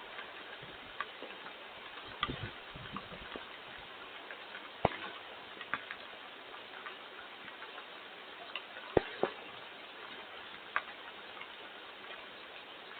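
Sparse, irregular sharp taps of storm precipitation striking a hard surface over a steady hiss of rain.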